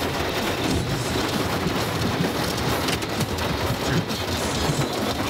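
Heavy rain falling on a moving car's roof and windshield, heard from inside the cabin as a steady dense hiss, mixed with the car's road noise on the flooded street.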